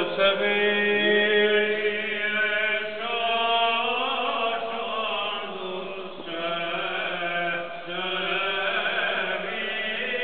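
Liturgical chanting: voices singing a slow, gliding melody over a steady held drone note.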